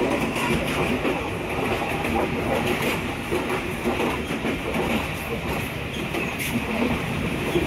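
Passenger train running along the track: a steady rumble and rattle of wheels on rails, with a few faint sharp clicks.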